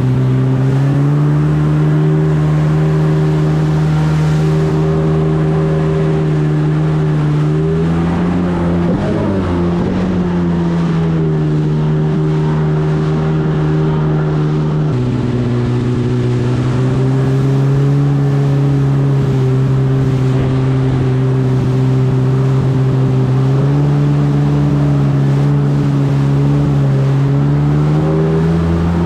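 Jet ski engine running at cruising speed, its pitch stepping up and down a few times with the throttle and wavering briefly about nine seconds in.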